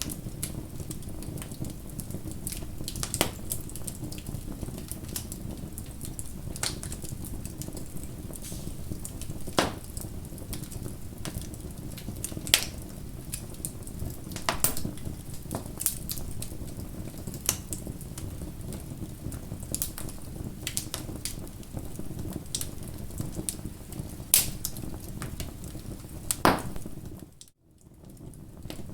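Bonfire burning: a steady low rumble of flames with scattered sharp crackles and pops from the burning wood. Near the end the sound cuts out almost completely for about a second, then comes back.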